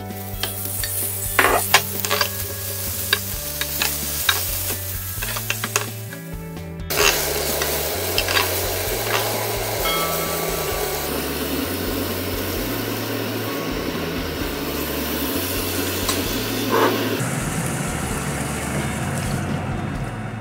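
Raw chicken drumsticks sizzling in a hot grill pan with sliced onions, the frying hiss filling out after the first several seconds. Early on, sharp knocks of a wooden spoon against the pan as the pieces go in and are turned.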